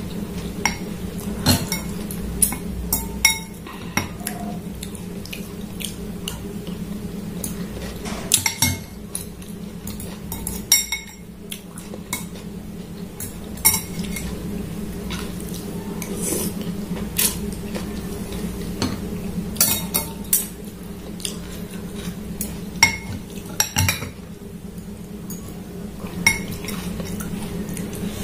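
Metal spoon and fork clinking and scraping against a glass bowl of noodle soup, in scattered sharp clinks, over a steady low hum.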